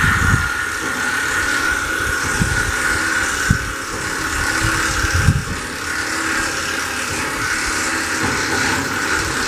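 A motor vehicle running steadily, with a few short low thumps.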